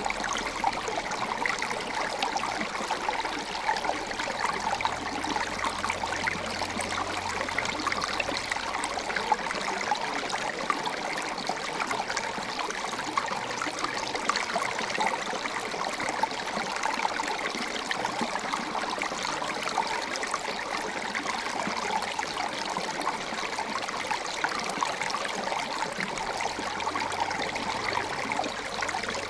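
Shallow creek trickling over rocks: a steady flow of water with many small splashes and gurgles.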